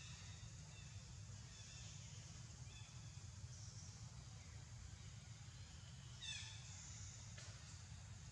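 Faint outdoor ambience of a low steady rumble and high hiss, with a few soft bird chirps falling in pitch and one louder high descending call about six seconds in.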